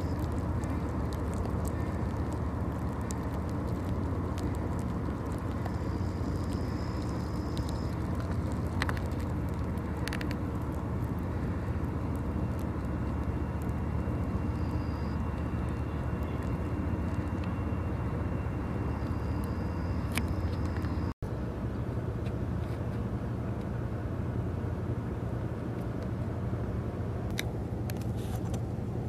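Steady low engine drone of a vessel under way, unbroken except for a brief dropout about 21 seconds in where the recording cuts, after which a similar steady drone continues.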